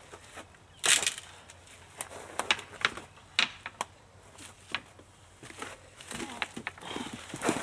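Dry twigs and brush snapping and rustling as a person pushes through a thicket, with irregular cracks, the loudest about a second in, among scattered footsteps.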